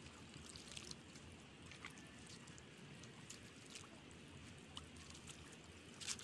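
Faint ambience of an exposed low-tide mudflat: a quiet hiss with scattered small clicks and drip-like ticks, one louder click near the end.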